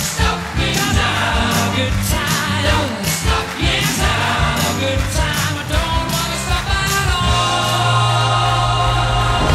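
Stage performance music with singing over a regular beat, closing on a long held chord for the last couple of seconds.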